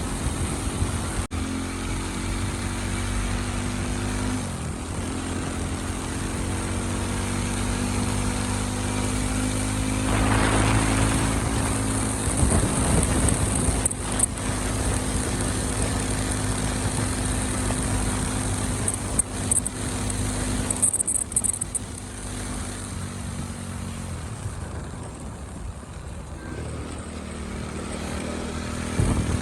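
Motorcycle engine running while riding, its pitch rising and falling several times with the throttle.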